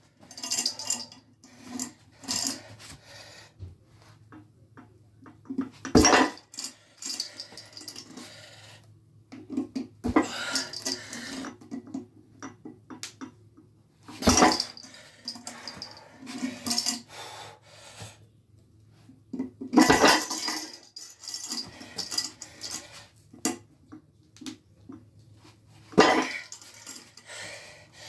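Chain-hung grip handle and a loading pin stacked with weight plates being lifted and set down: chain links jangling and plates clanking, with a sharp clank about every five seconds as the weight comes down.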